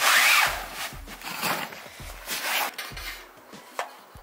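Scraping, rubbing noises in several short swells, the loudest right at the start.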